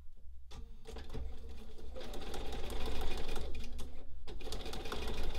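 Bernina sewing machine stitching a paper-backed fabric piece, a fast, even run of needle strokes that starts about half a second in and gets louder around two seconds in, with a brief pause about four seconds in.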